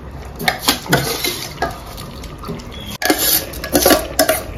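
Steel spoon clinking and scraping against a stainless steel bowl as soaked rice is scooped into a pressure cooker: a run of separate clinks, sparse at first and busier and louder in the last second or so.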